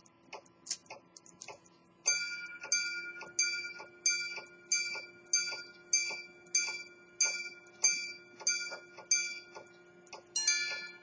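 Swiss quarter-repeater pocket watch striking the time on its gongs: twelve single hour strikes about two-thirds of a second apart, then a two-tone ding-dong for one quarter. The watch's fast ticking runs underneath.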